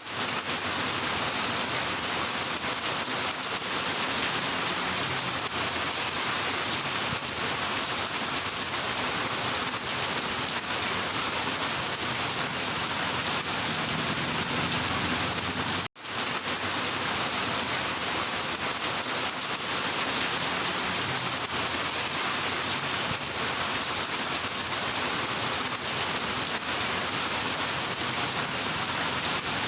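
Steady rain falling, an even dense hiss of drops on surfaces. The sound cuts out for a split second about halfway through, then the rain carries on unchanged.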